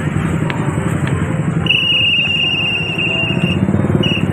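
A pea whistle trilling: one long blast of about two seconds in the middle and a short one near the end. Under it runs the steady sound of motorcycle engines.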